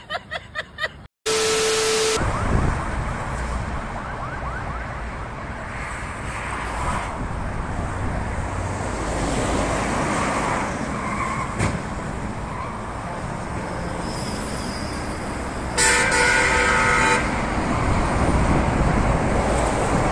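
Steady multi-lane highway traffic passing below, with a vehicle horn honking once for about a second and a half near the end.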